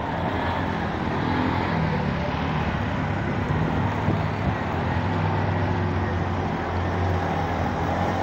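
Motor vehicle engines, auto-rickshaws and cars, running steadily at low speed, with a constant swish of water as they push through floodwater on the road. The engine hum grows slightly louder near the end.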